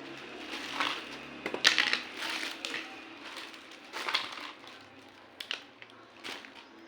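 Small plastic toy pieces and packaging being handled and unpacked: irregular rustling with several sharp clicks and clacks, the loudest a little under two seconds in.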